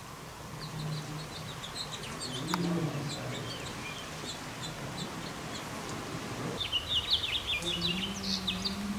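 Small birds chirping in quick, high twittering notes, busiest near the end, with a faint low hum coming and going underneath.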